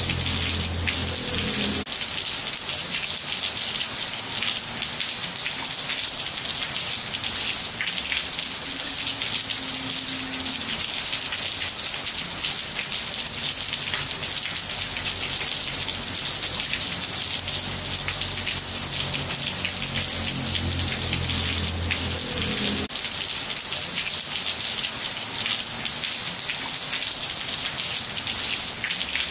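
Steady rain falling on a wet tiled floor, many small drops splashing on the tiles at an even, unchanging rate.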